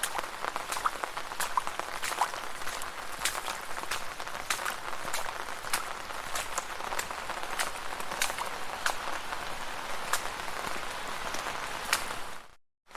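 Steady rain, with many individual drops ticking sharply on a hard surface. It cuts out abruptly to a brief silence near the end.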